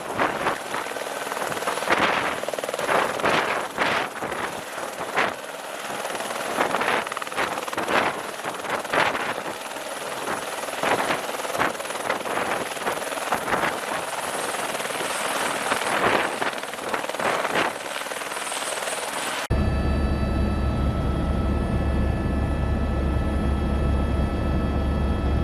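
An irregular rushing noise with gusts, then about three-quarters of the way through a sudden change to a helicopter running: a steady low rotor drone with several steady whining engine tones.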